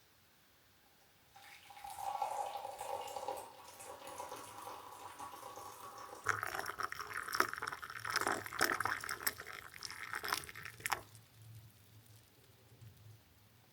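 Liquid pouring into a cup for a few seconds, then a quick run of light clinks and taps of crockery that stops about eleven seconds in.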